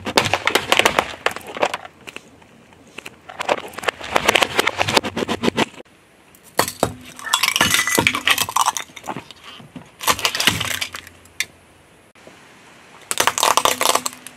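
A car tyre rolling over and crushing hard plastic objects such as a plastic lunch box and small plastic pails. About five separate bursts of cracking, crackling and snapping, with short quieter gaps between them.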